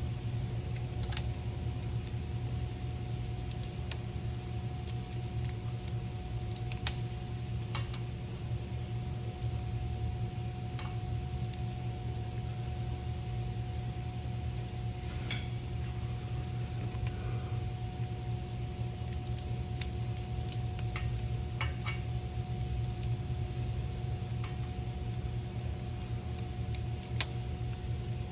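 Metal hand tools clicking and clinking against metal parts now and then, over a steady hum.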